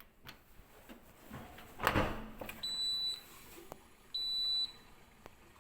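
Siemens dishwasher's beeper sounding two short, high, steady beeps about a second and a half apart, each about half a second long. A brief knock comes shortly before the first beep.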